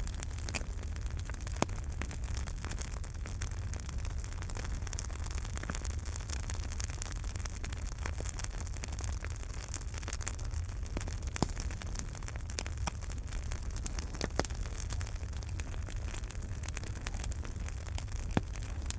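Wood fire burning in a fireplace: a steady low rumble of flames with scattered sharp crackles and pops, a few louder pops standing out.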